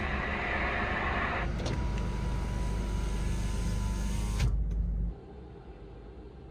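A motor running, first with a hissing noise, then with a steady low hum and a thin whine. The whine wavers and stops with a click about four and a half seconds in, and the hum cuts off half a second later.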